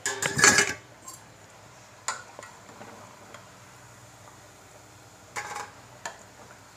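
Metal slotted spoon clattering against a stainless-steel kadhai while fried pieces are lifted out of the hot oil. One loud clatter at the start, then a few lighter clinks.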